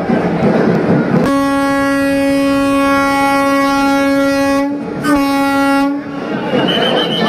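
A horn sounding two blasts at the same steady pitch: a long one of about three and a half seconds, then a short one of about a second.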